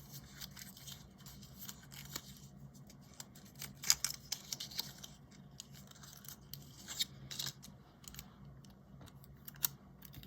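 Small clicks and rustles of a watercolour paint pan being unwrapped and handled. The sounds are scattered and soft, a little louder about four seconds in and again around seven seconds.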